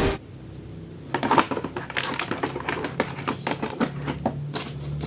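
Plastic action figures and their packaging being handled, giving irregular clicks, taps and crinkles.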